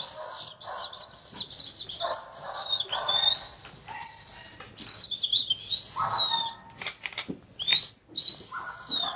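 High-pitched whistling that wavers and glides up and down in short arcs, with a few sharp clicks.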